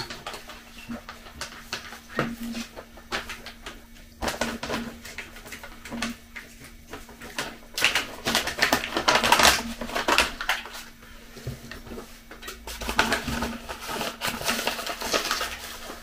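A spoon clinks and scrapes in a bowl, then a packet of chicory powder rustles and crinkles as it is picked up and handled, in two longer spells of crackling.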